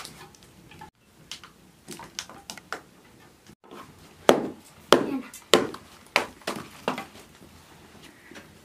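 A dried dung fuel cake being chopped apart with a hand tool on an earth floor: a few light knocks, then about five sharp blows some 0.6 s apart in the second half, breaking it up for stove fuel.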